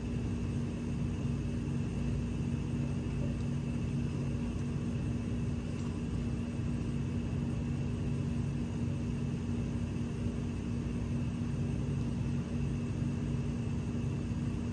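A steady engine hum with a low rumble underneath, holding one pitch.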